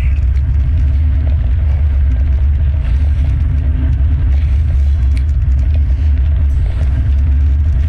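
Loud, steady low rumble of wind buffeting the microphone while riding a road bicycle, with road noise underneath.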